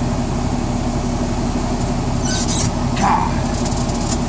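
Truck engine idling steadily, heard from inside the cab. A short hiss comes a little past two seconds in, and a brief sound about a second later.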